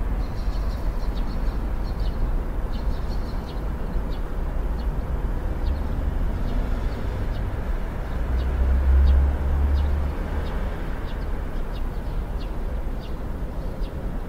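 Steady low background rumble with faint short high chirps scattered through it; the rumble swells for a couple of seconds about eight seconds in.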